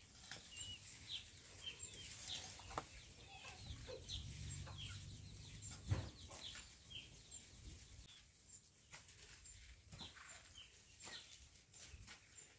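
Chickens clucking and peeping faintly, short scattered chirps, with a single dull thump about six seconds in.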